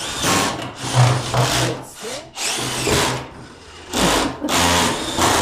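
Power drill run in short bursts, about five in a row, with its whine rising and falling as the trigger is squeezed and released.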